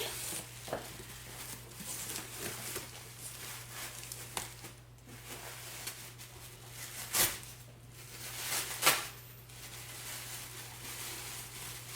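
Wrapping paper rustling and crinkling as a present is opened, with two louder crackles about seven and nine seconds in, over a steady low hum.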